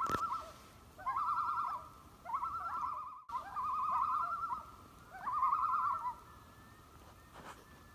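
Common loon giving its tremolo call: a rapidly wavering call repeated about five times, each phrase under a second long and ending in a short downward slur.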